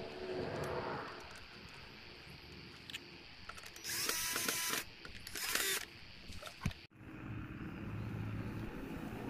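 Cordless drill driving a screw into a toy truck's bumper in two short bursts, about four and five and a half seconds in.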